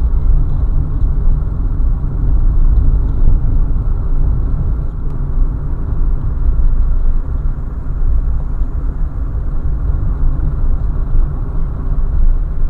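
A car driving along the road: a steady low rumble of tyres and engine.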